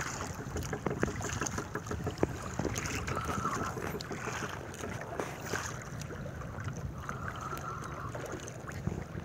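Wind buffeting the microphone and sea water slapping around the hull of a small outrigger boat, with scattered small clicks and knocks.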